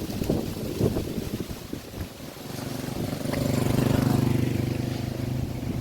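Wind buffeting the microphone in gusts, then a motor vehicle's engine comes up steadily, loudest about four seconds in, and eases off as it passes.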